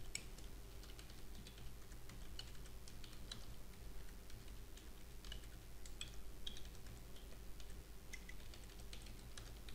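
Typing on a computer keyboard: faint, irregular keystroke clicks in quick runs, over a steady low hum.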